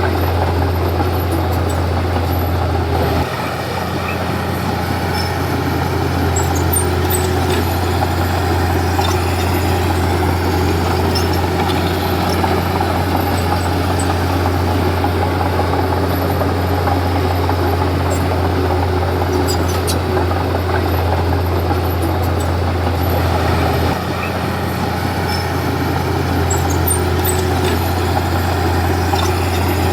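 Komatsu D31P bulldozer's diesel engine running steadily with a deep drone. Its note shifts and the level dips slightly about three seconds in and again about six seconds before the end. Faint high clicks are scattered through it.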